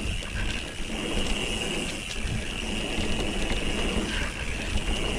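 Mountain bike's rear freehub pawls clicking into a steady buzz as the rider coasts downhill, over a low rumble from the tyres on the dirt trail.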